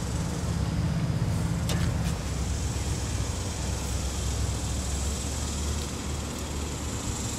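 A motor vehicle's engine running steadily: a low rumbling hum, with a steady high hiss above it and a couple of faint clicks about two seconds in.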